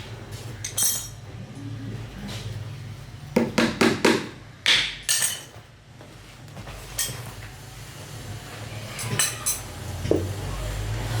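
Irregular knocks and metallic clinks of hand tools being struck and handled, about a dozen in all, with a cluster of knocks a little past three seconds in and a few ringing clinks near the end. A steady low hum runs underneath.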